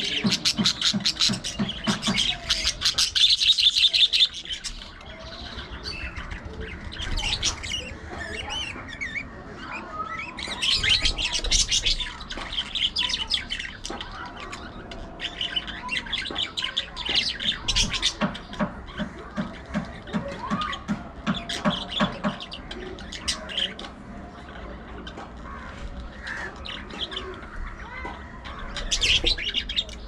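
A flock of budgerigars chattering and chirping continuously, with louder bursts of rapid chirps about three seconds in, around eleven seconds, and near the end.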